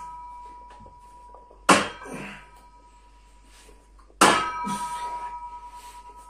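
Two metallic clangs from a loaded barbell's iron plates during chest-supported barbell rows, about 1.7 s and 4.2 s in, each leaving the metal ringing. The second clang rings on with a wavering tone for about two seconds.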